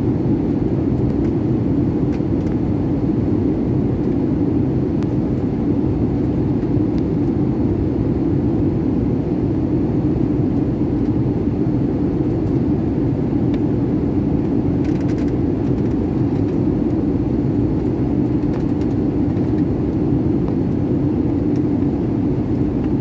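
Jet airliner cabin noise in flight: a steady low drone from the turbofan engines and the air rushing past the fuselage, heard from a window seat.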